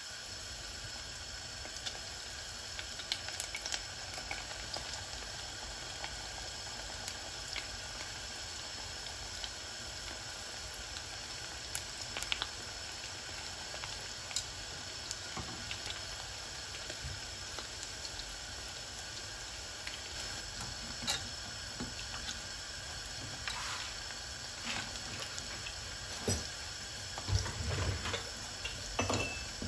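Dough sticks deep-frying in hot oil in a pot: a steady sizzle with scattered crackles and pops, and a few louder pops and knocks near the end.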